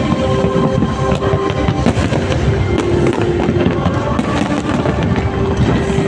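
Aerial fireworks banging and crackling in quick succession over show music with long held notes.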